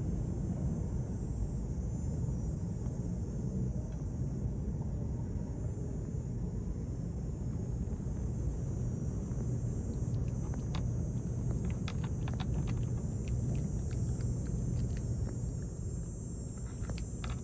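A cat crunching a dry treat: a scattered run of small crisp clicks starting about ten seconds in, over a steady low rumble.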